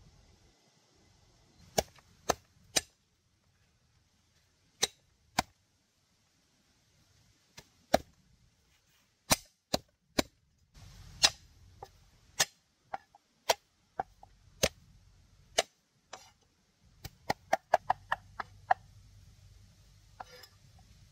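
Sharp chopping strikes of a blade on wood. They come one at a time with short pauses, then a quicker run of about ten strikes in under two seconds near the end.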